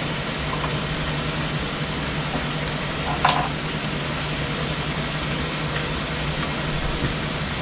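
Sirloin steak tips sizzling in butter in a frying pan, a steady hiss over a low steady hum, with one short knock about three seconds in.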